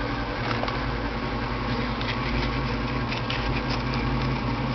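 A 1996 Ford Mustang GT's 4.6-litre V8 idling steadily with a low drone through Flowmaster 40 mufflers and an off-road X-pipe. A few light scratchy clicks come near the middle.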